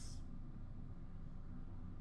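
Quiet room tone with a faint steady low hum, in a pause between spoken words.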